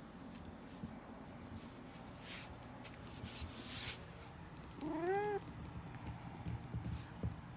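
A domestic cat meows once, a short call that rises and then falls in pitch, about five seconds in. A few brief hissy noises come before it, over a steady low hum.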